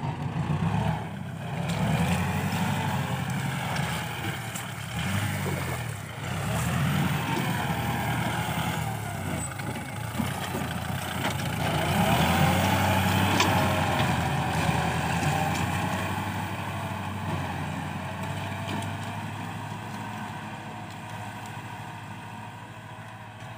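Kubota tractor's diesel engine running under load while pulling a disc plough through the soil. It grows louder as it passes close by around the middle, then fades steadily as it moves away.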